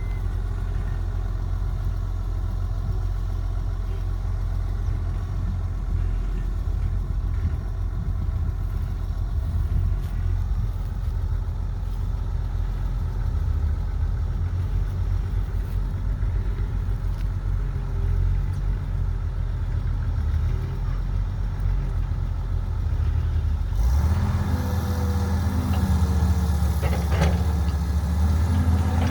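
Caterpillar 312B excavator's diesel engine running steadily with a low hum; near the end the engine note changes abruptly, becoming stronger and a little higher.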